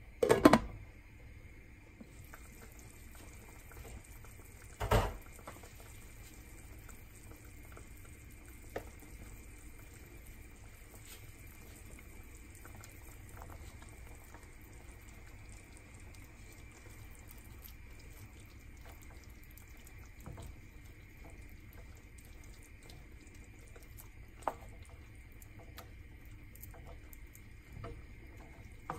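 Broth simmering in a frying pan, a steady low bubbling. Just after the start a glass lid clatters loudly against the pan, and a second knock follows about five seconds in.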